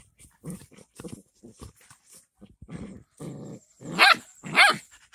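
A mother dog and her puppy play-fighting: a run of short, low growls and snarls, then two loud, high barks near the end.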